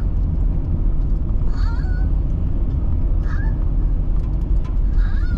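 Steady low rumble of a car being driven, with short, high, wavering squeaks about every second and a half.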